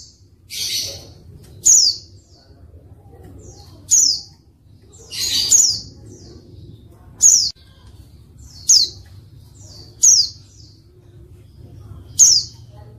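Female white-eye (pleci) calling: about seven short high notes, each a quick downward sweep, one to two seconds apart, with two harsher, noisier calls near the start and about five seconds in. These are the female calls used to stir a quiet male white-eye into answering and singing.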